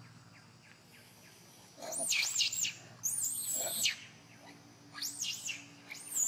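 Young long-tailed macaque screaming: runs of high-pitched squeals, each rising and falling quickly, starting about two seconds in and coming again around five seconds and near the end.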